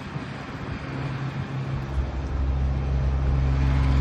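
A motor vehicle's engine running steadily over a constant hiss, its low hum growing louder about halfway through.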